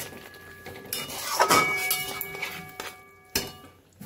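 A spoon or spatula clanking and scraping against a kadai while stirring chicken curry, with a few sharp knocks that ring on briefly.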